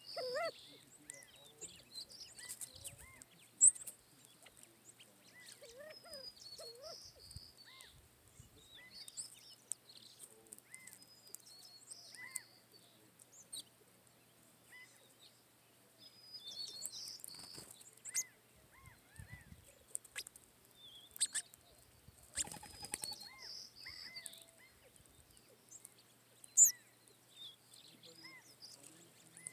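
Birds calling: soft, short call notes repeating every second or two, with bursts of higher chirping now and then, and sharp clicks about four seconds in and near the end.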